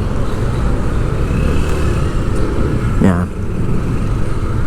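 Steady vehicle engine and road noise while moving through city streets, mostly low-pitched.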